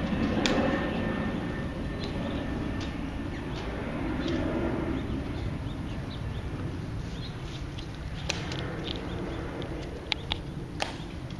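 Steady outdoor rumble and hiss of a rainy open plaza, louder at the start, with a few sharp clicks in the second half.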